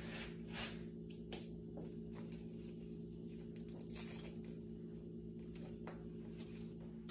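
Velcro plant ties being pulled off a coir moss pole: faint short rips and rustles of leaves and stems, scattered irregularly, over a steady low hum.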